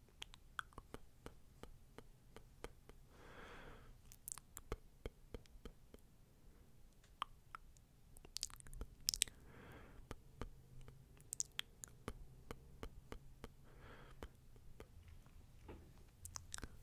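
Faint close-miked ASMR sounds: many small soft clicks, with a slow, soft breath about every five to six seconds.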